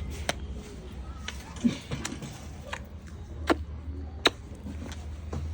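Several sharp clicks and taps, irregularly spaced about half a second to a second apart, over a steady low hum.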